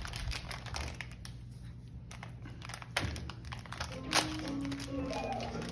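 Packaging crinkling and rustling in quick, irregular crackles as a disposable camera is unwrapped, over background music.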